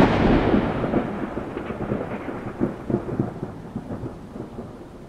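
Thunder clap: a sudden loud crack at the start that rumbles with irregular crackles and slowly fades over the following seconds.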